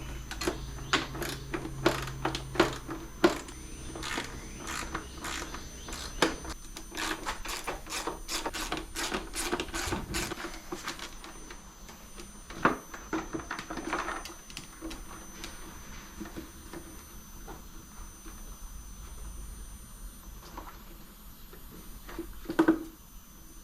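Hand ratchet with an extension clicking as it backs out the headlight mounting bolts, in quick runs of clicks for about the first ten seconds, then a few scattered clicks and knocks.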